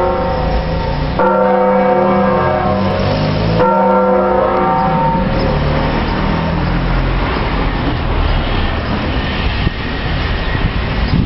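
Church tower bells ringing, with fresh strikes about one and three and a half seconds in. The ringing dies away after about six seconds, leaving a steady wash of street traffic noise.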